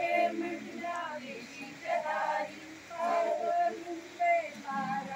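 Women's voices singing a song together in short phrases.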